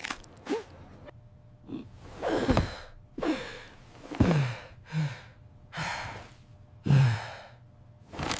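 A cartoon character's voice sighing and gasping: about five breathy exhales, each falling in pitch, about a second apart.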